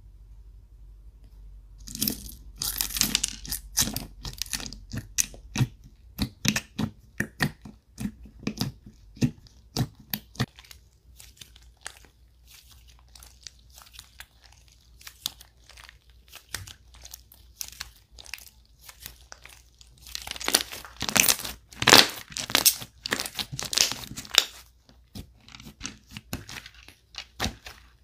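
White slime with mixed-in charms being squeezed, folded and stretched by hand, making sticky crackling and popping in dense runs of clicks. It is loudest a couple of seconds in and again about twenty seconds in.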